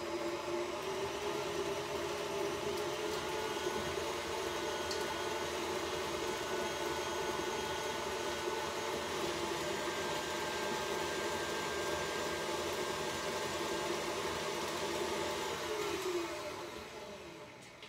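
Electric tilt-head stand mixer running with its flat paddle beating butter, shortening and eggs: a steady motor whir with a held tone. About sixteen seconds in it is switched off and the motor winds down, its pitch dropping as it slows.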